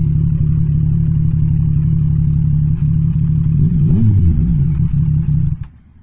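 Yamaha MT-07's parallel-twin engine running steadily, its revs rising and falling once briefly about four seconds in, then cutting off suddenly near the end.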